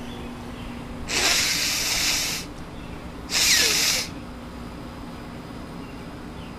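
A man blowing his nose hard twice without a tissue: two forceful rushes of air through the nose, a longer one about a second in and a shorter one a couple of seconds later.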